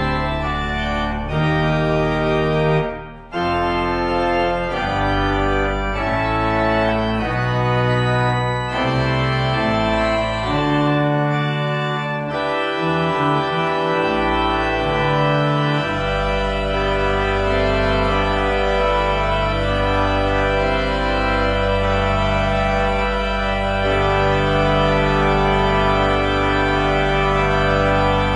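Church organ played on manuals and pedals: full sustained chords over a pedal bass line, with a brief break about three seconds in. From about halfway it settles into held chords over a repeating bass note.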